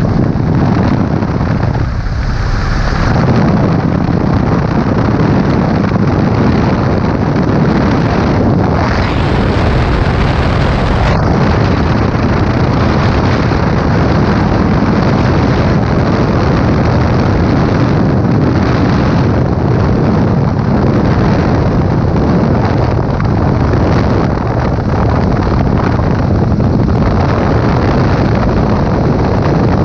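Corben Baby Ace light aircraft in flight: the engine and propeller running steadily under a loud rush of wind buffeting the microphone in the open cockpit.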